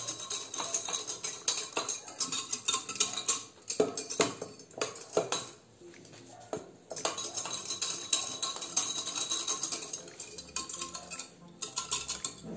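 Wire whisk beating milk and melted butter in a glass jug, the tines clicking rapidly against the glass, with a brief pause about halfway through.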